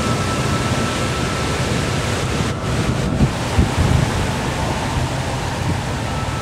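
Strong, gusty thunderstorm wind blowing through trees and buffeting the microphone: a steady rushing noise with uneven low rumbling gusts.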